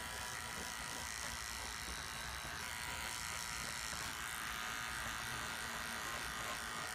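Andis electric hair clippers running with a steady buzz, lightly working along the edge of the hair to blend a taper.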